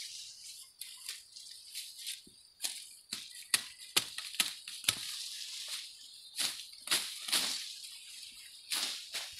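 Tall grass rustling and crackling as it is pushed and handled close up, with irregular sharp snaps of stalks and leaves.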